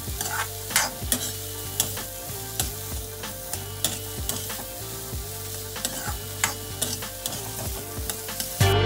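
Chopped vegetables sizzling in butter in a pan while a spatula stirs them, with frequent irregular clicks of the spatula against the pan. Background music plays underneath and gets louder near the end.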